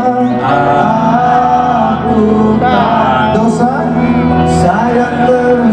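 Men singing a duet into microphones, amplified, over a musical backing; the voices hold long melodic notes with slides between them.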